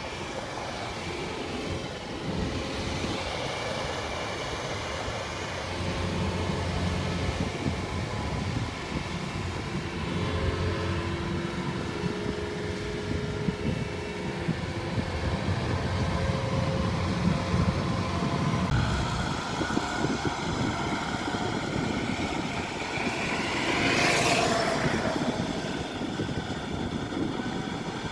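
Kubota combine harvester's engine running steadily at working speed. About two-thirds of the way through the sound changes, and a brief louder surge of noise comes about four seconds before the end.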